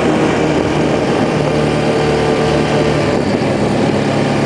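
A vehicle engine running steadily at an even pitch.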